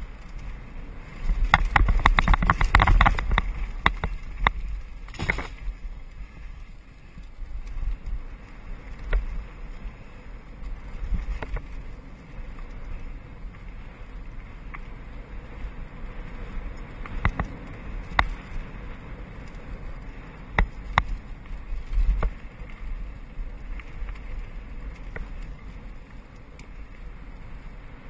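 Mountain bike rolling fast down a dirt singletrack, heard from a camera mounted on the bike. Wind rumbles on the microphone under tyre noise, with irregular rattles and knocks as the bike runs over bumps. The clatter is densest and loudest in the first few seconds.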